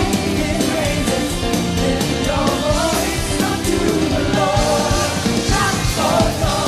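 Live pop-rock band playing with a singer carrying the melody over drums and full accompaniment.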